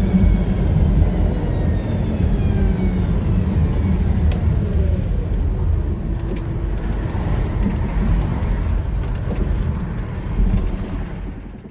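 REVA G-Wiz electric car on the move, heard from inside the cabin: steady road and wind noise, with the electric motor's whine falling in pitch over the first several seconds as the car slows.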